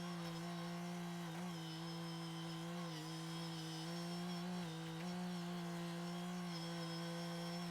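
Engine running at a steady speed, its pitch dipping briefly a few times as if under load.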